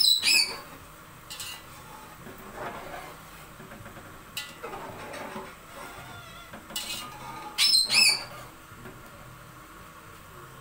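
Metal spatula stirring and scraping in a large aluminium pot of boiling rice and chickpeas, with light knocks against the pot. Two short, loud, high squeals stand out, one right at the start and one about eight seconds in.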